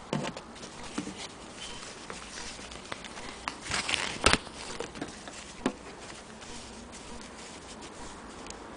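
Handling noise from a piece of cloth and a sewing machine: scattered light clicks and knocks at irregular intervals, a brief rustle a little before halfway, and one sharp click about four seconds in.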